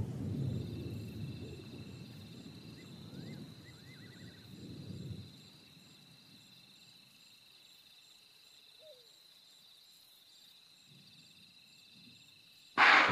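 Night insect chorus, crickets trilling steadily at a high pitch. Over the first few seconds the low rumble of a thunderstorm fades away under it. A sudden loud burst cuts in at the very end.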